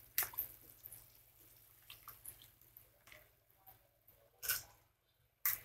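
Hands squeezing and scooping wet puffed rice in a bowl of water: faint, soft squishing and dripping, with a couple of louder brief noises near the end.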